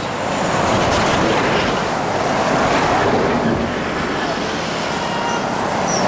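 Bus driving past on the road: steady engine and tyre noise that swells and eases as it goes by.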